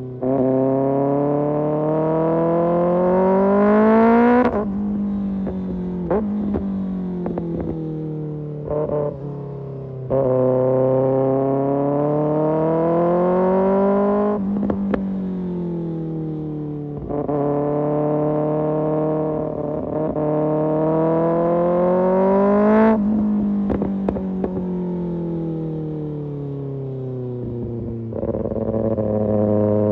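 Kawasaki ZX-6R inline-four engine through an Arrow Pro Race exhaust, revving hard several times with the pitch climbing and then dropping suddenly as it shifts gears. Between pulls the revs fall away on the overrun with crackles and pops from the exhaust.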